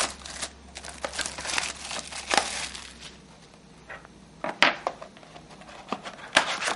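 A sealed hockey trading-card box being torn open: plastic wrapping crinkling and tearing and cardboard being handled, with a few sharp snaps a little after halfway and near the end.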